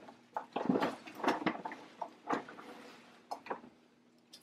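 Tissue paper rustling and crinkling in irregular bursts as it is pulled out of a paper gift bag.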